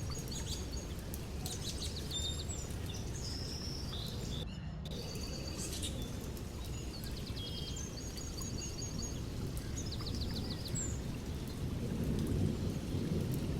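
Steady rain with a low rumble of thunder that swells near the end, while birds chirp in short repeated trills. The sound cuts out briefly about four and a half seconds in.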